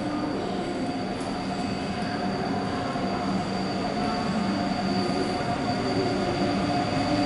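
Train running on the rails with a steady high wheel squeal, slowly growing louder.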